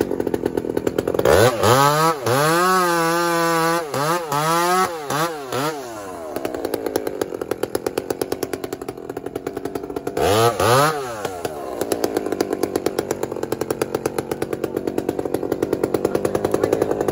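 Two-stroke chainsaw idling with a steady pulse. It is revved up and down several times from about one and a half to six seconds in, and once more briefly around ten seconds in.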